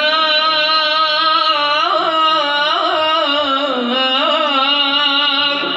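A male singer (syeh) sings one long held note into a microphone in Acehnese vocal style, with wavering, melismatic ornaments around the middle and no instruments heard.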